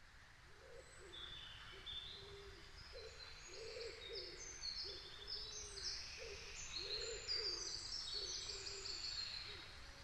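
Birdsong fading in: many short high chirping calls over a lower call repeated roughly once a second.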